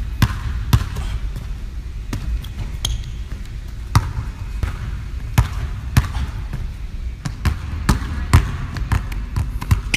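Basketball dribbling on a hardwood gym floor: sharp, irregular bounces about one or two a second, some much harder than others, over a steady low rumble.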